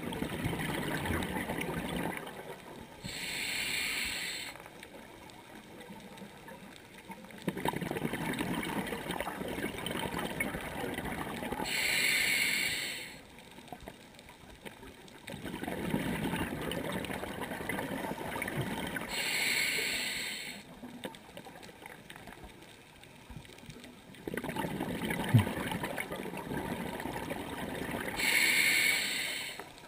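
Scuba diver breathing through a regulator underwater. Each breath is a long bubbling exhale followed by a short hissing inhale through the regulator, about every eight seconds, four breaths in all.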